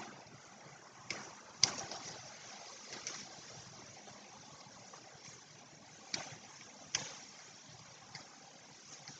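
Dry bamboo leaf litter crackling and rustling under a cat's paws as it pounces and scrambles at a flashlight: about half a dozen short sharp crackles, the loudest about one and a half seconds in, over a faint steady hiss.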